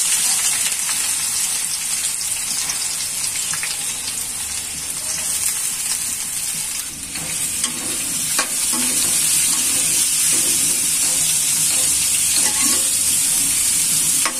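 Sliced onions frying in hot oil in a metal karahi, a loud steady sizzle. From about halfway a metal spoon stirs them, with scrapes and clicks against the pan.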